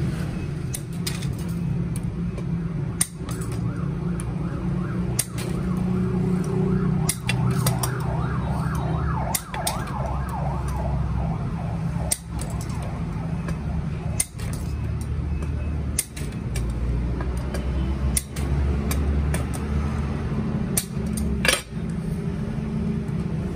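Scattered sharp clicks and clinks of lead-acid battery plates being handled and their lead lugs cut with hand snips, the loudest near the end, over a steady low rumble.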